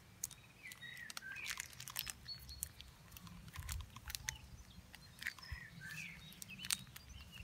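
Faint crinkling and clicking of plastic wrap and electrical tape as the tape is wound tightly around a moss-filled wrap on a branch. Birds chirp faintly in the background, about a second in and again near the end.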